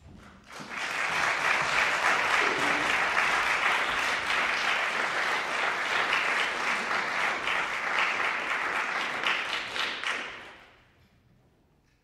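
Audience applauding. The applause builds within the first second, holds steady, and dies away about ten seconds in.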